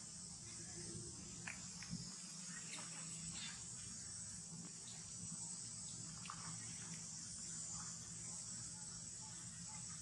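Steady high-pitched insect chorus, with a few faint short clicks scattered through it and a low hum underneath.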